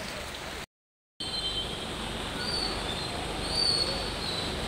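Heavy rain hissing steadily, with a few short, high bird chirps from about two seconds in. The sound drops out completely for about half a second near the one-second mark.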